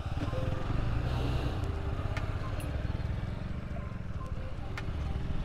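Hero Xtreme 160R motorcycle's single-cylinder engine running with a steady low pulsing throb.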